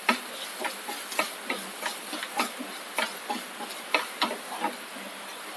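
Wooden spatula stirring grated coconut frying in coconut oil in a non-stick pan: irregular scraping taps against the pan over a faint steady hiss of frying, as the coconut is roasted until it browns.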